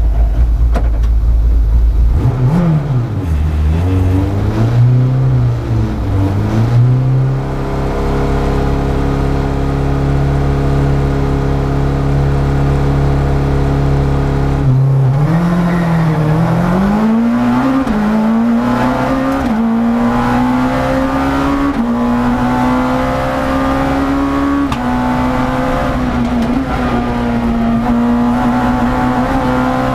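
Rally car engine heard from inside the cockpit. The revs are blipped up and down, then held steady for several seconds. About fifteen seconds in the car launches and accelerates hard through quick upshifts, the pitch climbing and dipping briefly at each gear change.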